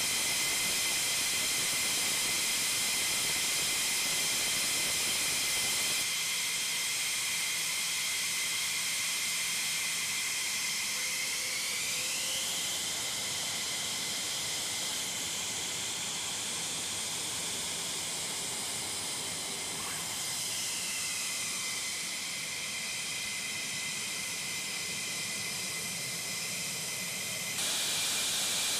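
F-15 fighter jet's engines running at idle on the ramp: a steady loud hiss with a high turbine whine, the whine rising in pitch about twelve seconds in and falling back around twenty seconds.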